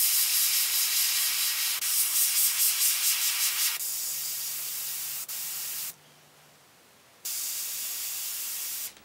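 Gravity-feed airbrush spraying ink with a steady hiss. It is louder for the first few seconds, then quieter, stops for about a second around six seconds in, starts again, and cuts off just before the end.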